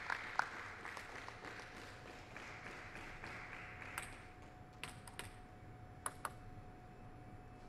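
Scattered clapping fading away over the first few seconds, then a few sharp ticks of a table tennis ball, two of them close together near the end, over a faint steady hum.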